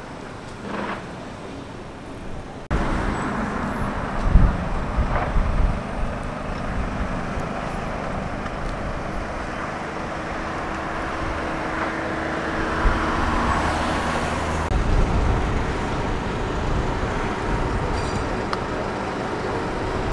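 Steady rumble of vehicle engines running, with a few louder knocks about four to five seconds in. The sound is quieter for the first few seconds, then jumps abruptly louder.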